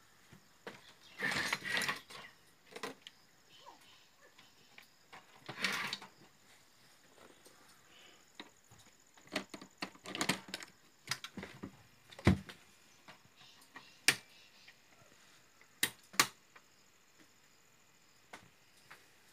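Handling noise from an opened automatic voltage stabilizer's metal case on a wooden bench: scattered clicks and knocks, two short rustling stretches early on, and several sharp clicks in the second half.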